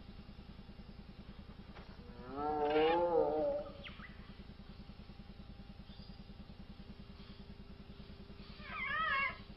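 Creature sound-effect calls of a baby duckbill dinosaur: a wavering, warbling call about two seconds in that lasts about a second and a half, and a shorter, higher warbling call near the end, over a steady low hum.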